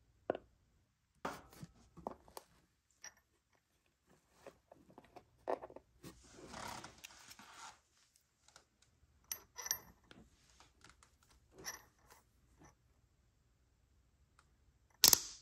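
Quiet handling sounds as a 50 g tube of grease is squeezed into a snowmobile engine's crankshaft bearing: scattered clicks and scrapes, and a longer rasping stretch about six to eight seconds in. A sharp, louder knock near the end.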